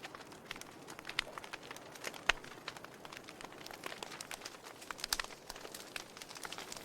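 Logs burning in a fireplace, crackling: irregular sharp pops and snaps over a soft hiss, with one louder pop a little over two seconds in.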